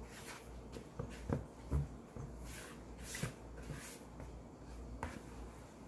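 A spatula stirring and scraping dry flour and baking powder around a plastic mixing bowl: repeated soft swishes with a few light knocks against the bowl.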